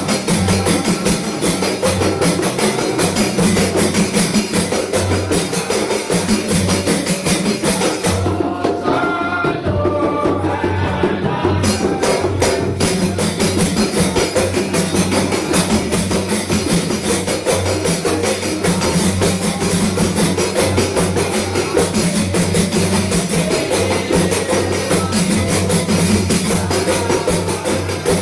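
Javanese terbang frame drums played as an ensemble in a dense, steady interlocking rhythm. The sharp high slaps drop out for a few seconds about eight seconds in, leaving the deeper strokes, then come back.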